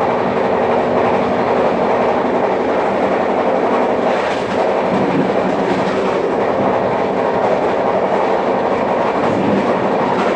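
Express passenger train running at speed, heard from an open door or window of its coach: a steady, loud rumble of steel wheels on the rails and rushing air, with irregular clatter from the wheels over the track.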